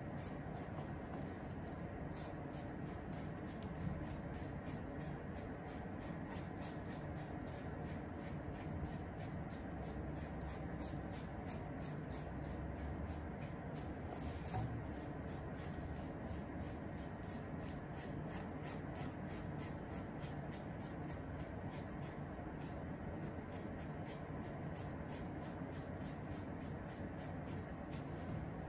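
Faint handling noise of hands turning and rubbing a suede Paraboot Michael shoe, soft rustling against a steady room hum, with a light knock about 4 seconds in and another near the middle.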